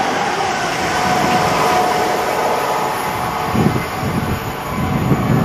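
A Southern Class 377 electric multiple unit running away along the line, its running noise and a steady whine fading as it recedes. Wind buffets the microphone in gusts over the second half.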